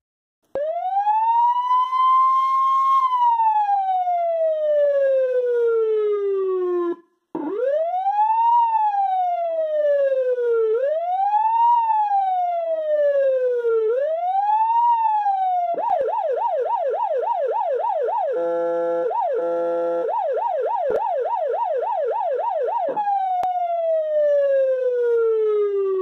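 Whelen WS-295-53 electronic siren running through its tones. First a slow wail rising and falling once, then three quicker wails of about three seconds each. Then a rapid yelp of about three cycles a second, broken twice by short blasts of its electronic air-horn tone, before it winds down in a long falling wail.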